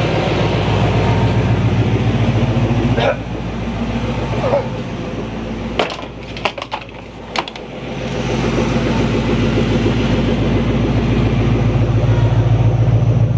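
Car engine idling steadily. About six seconds in it drops to a quieter stretch with a few sharp clicks and knocks, then the idle comes back as before.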